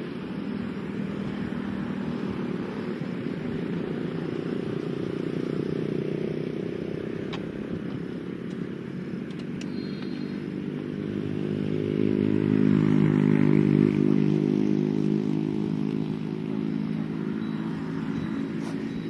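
A motor vehicle engine running steadily, growing louder about two-thirds of the way through and then easing off, as if passing by, with a few faint clicks.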